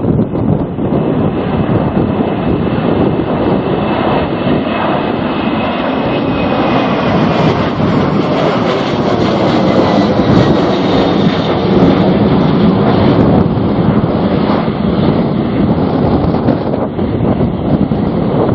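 A jet airliner's engines passing, the noise swelling to a peak about halfway through and easing off, over strong gusty wind buffeting the microphone.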